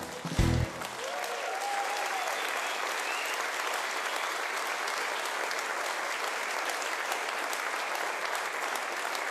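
A seated audience applauds steadily, with many hands clapping. It starts as the band's final chords stop, under a second in, at the end of a song.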